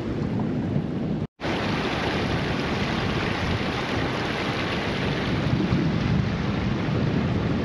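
Wind buffeting the microphone with a heavy low rumble, over the steady wash of surf breaking on a reef. The sound drops out completely for a moment about a second in, at an edit.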